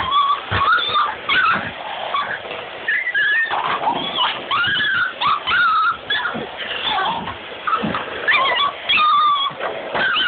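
Dogs whining and yipping in agitation, typical of dogs upset by a vacuum cleaner. The cries are short and high and waver up and down in pitch, following one another without a break and sometimes overlapping.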